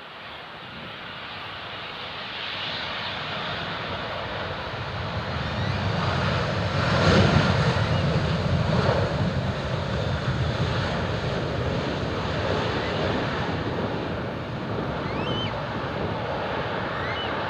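Airbus A320-216 jet airliner's CFM56 turbofan engines passing on landing: a broad roar that builds to its loudest about seven seconds in, then stays strong and eases only slightly.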